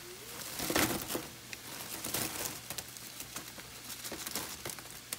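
Paper towel crinkling and rustling as freshly fried crinkle fries are tipped onto it from a wire fryer basket, with a scatter of small crackles. The loudest burst comes about a second in.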